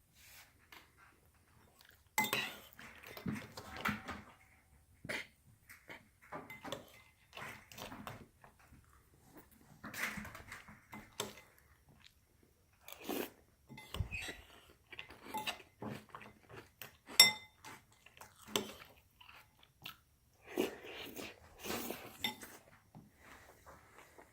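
A cat playing with a toy: irregular bursts of clattering, rattling and knocks, with a sharp knock about seventeen seconds in.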